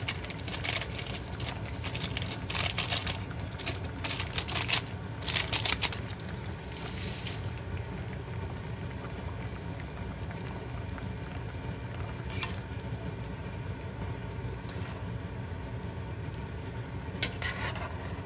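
Cooking at a pot of chicken sinigang: clusters of short sizzling, scraping noises through the first seven seconds, then a few single ones later, over a steady low rumble.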